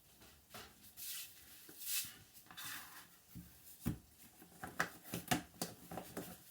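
Kitchen handling noises: a few short scraping strokes of a utensil in a pot, a single knock about four seconds in, then a quick run of light clicks and taps of containers being handled.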